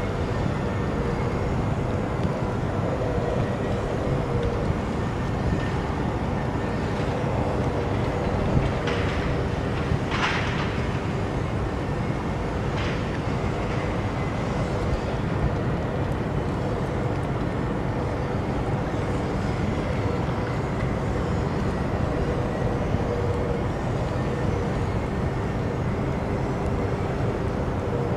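Steady low rumble and drone of industrial machinery at a harbour grain terminal, with a couple of faint steady hum tones running through it. A few brief higher-pitched sounds come near the middle.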